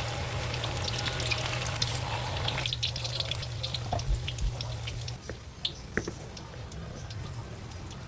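Risoles frying in hot oil, a dense crackling sizzle that thins out to occasional pops after about five seconds.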